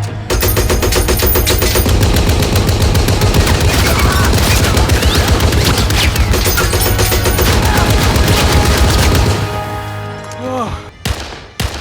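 Sustained automatic gunfire in a WWII film battle: several machine guns firing long, rapid bursts together, thinning out about three-quarters of the way through.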